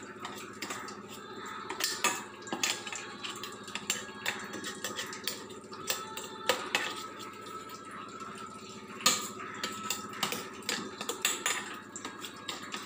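A spoon clinking and scraping against steel utensils as minced chicken is scooped out, in irregular sharp clicks, over a steady low hum.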